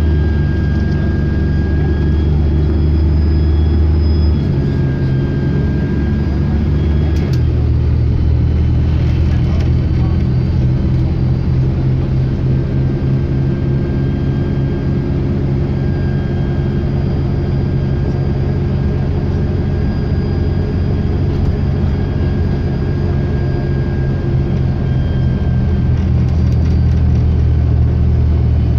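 Preserved bus's diesel engine running steadily, with a thin turbocharger whistle above it that rises at the start, then fades in and out. The engine note steps down about four and seven seconds in.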